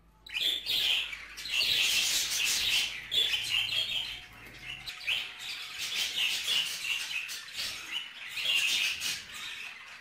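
Budgerigars chattering: a continuous run of fast chirps and twittering warble, busiest in the first few seconds.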